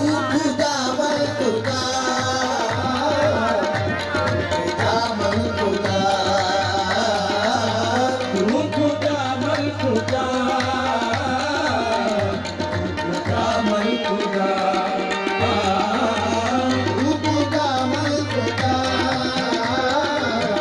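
Live qawwali: harmoniums and tabla accompany a lead singer and chorus singing a naat, without a break.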